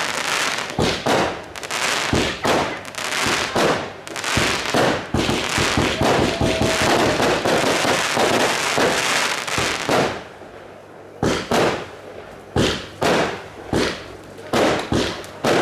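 Fireworks display: a dense run of shell bursts and crackling for about ten seconds, then a short lull, then separate bangs about twice a second.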